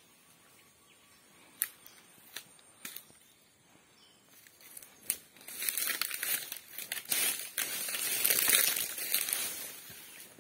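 Footsteps crunching and crackling through dry fallen oil palm fronds and leaf litter. A few scattered snaps come first, then a dense stretch of crackling from about halfway in, loudest near the end.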